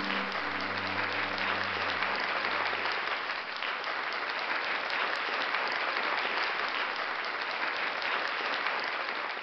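Audience applauding steadily, while a low held final chord from the band dies away about three seconds in.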